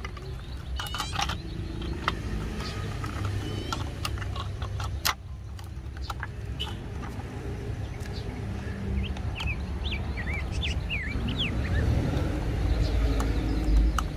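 Plastic clicks and knocks as the parts of a toy garbage truck are pressed together and handled, over a low steady rumble that grows louder near the end. Birds chirp several times about nine to twelve seconds in.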